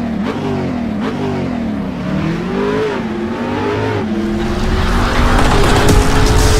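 Edited intro sound effect of a revving car engine, its pitch sweeping up and down several times, then holding steadier as a rising rush of noise builds and grows louder near the end.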